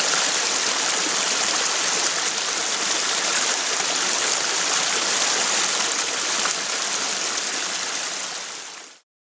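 A small temporary desert stream, formed by heavy rains, running steadily over rocks and boulders. The sound fades out near the end.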